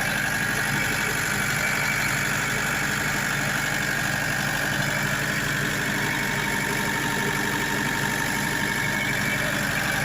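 Diesel generator engine running steadily at a constant speed.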